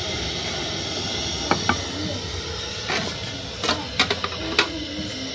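About half a dozen sharp clinks and knocks of plates, bowls and a wooden spoon being handled, over a steady background hiss.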